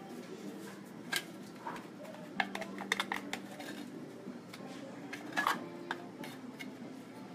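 Metal utensils clinking and scraping against a stainless steel mixing bowl as dried-apricot puree is scraped into it: a few sharp clinks, with a quick cluster of them around the middle.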